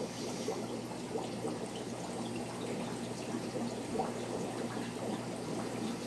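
Aquarium water trickling and splashing steadily, with a low steady hum underneath.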